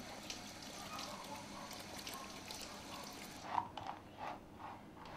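Water running from a bathroom tap as a steady hiss, stopping about three and a half seconds in. A few short dog barks follow.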